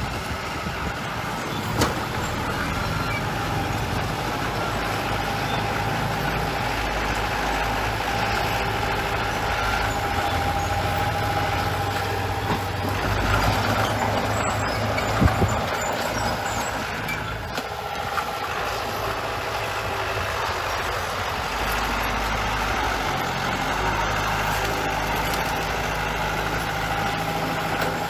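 Heavy diesel construction machinery running steadily, with two sharp knocks, one about two seconds in and one about halfway through.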